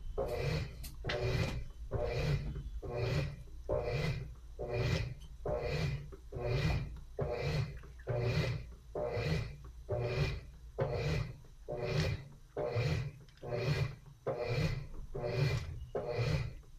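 Top-loading washing machine agitating a load, the water and clothes swishing back and forth in an even rhythm of about one stroke a second.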